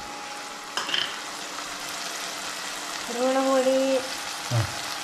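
Chopped onions and green chillies sizzling steadily as they fry in oil in a clay pot, with a single knock about a second in.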